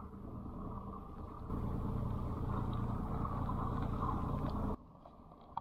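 Suzuki outboard motor running steadily, pushing the skiff along. A hiss joins about a second and a half in, and the sound drops away suddenly near the end.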